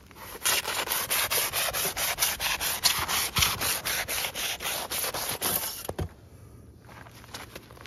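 Homemade insulation knife, an old handsaw sharpened into a blade with a grinder, sawing quickly through a slab of compressed rock wool faced with aluminium foil, in a fast even rasping of about five strokes a second. The sawing stops about six seconds in with a single knock.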